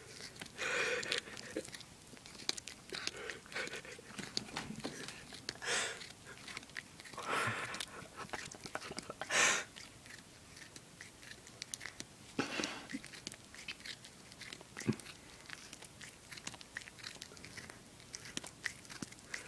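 A cat chewing and biting on a string right at the microphone: a run of small clicking chews, with a few louder noisy bursts, the loudest about halfway through.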